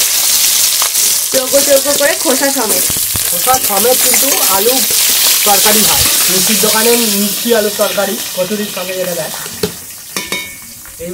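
Cubed potatoes sizzling in hot mustard oil in a wok, stirred with a metal spatula. The sizzle dies down near the end.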